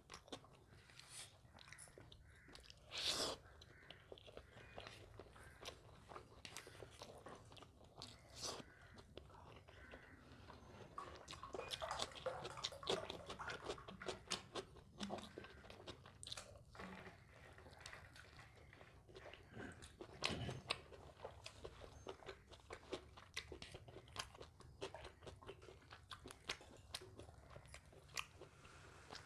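A person quietly chewing and biting a meal of mutton biryani, with wet mouth clicks and occasional crunchy bites; a few louder bites come about 3 seconds in, in a cluster around the middle, and again about two-thirds of the way through.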